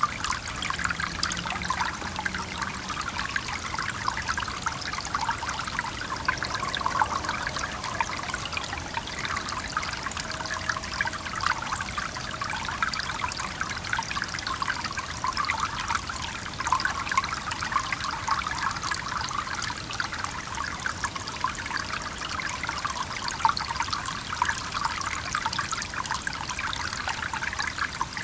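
Small stream trickling and babbling steadily, a dense patter of water flickers with no pauses.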